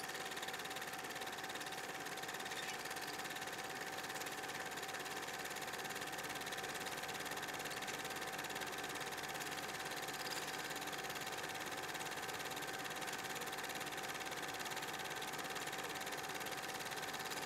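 A steady hum over an even hiss, with one held mid-pitched tone, unchanging throughout.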